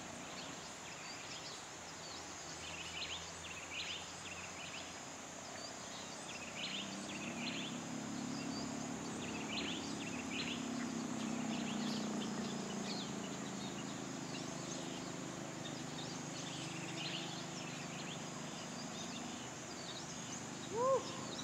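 Rainforest ambience: many birds chirping over a steady high insect drone, with a faint low rumble swelling in the middle. Near the end comes one short, louder rise-and-fall call.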